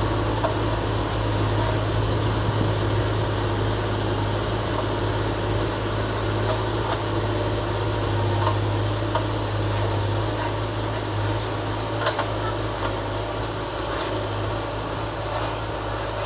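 John Deere 4755 tractor's six-cylinder turbo diesel running steadily under load as it pulls a mounted plough through the soil, with a few faint clicks. The drone fades a little near the end as the tractor draws away.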